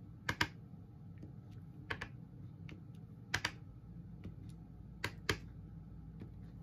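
Clear acrylic stamp block clicking and tapping as it is inked on an ink pad and pressed onto cardstock: four sharp double clicks about one and a half seconds apart, with fainter ticks between.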